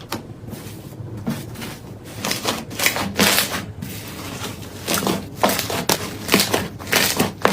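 Slime being squeezed and poked by hand, making a run of sharp sticky clicks and pops. The clicks are fainter at first and come thicker and louder from about two seconds in.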